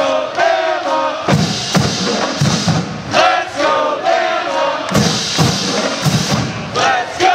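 Marching band playing: brass phrases over a steady drum beat, with hits about every half second, and crowd noise underneath.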